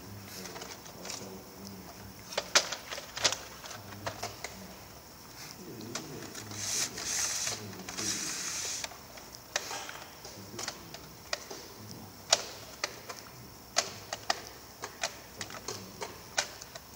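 Irregular clicks and clacks of stiff black plastic trays being handled and set down on a workbench, some sharper knocks among them. A hiss lasting about two seconds comes in the middle.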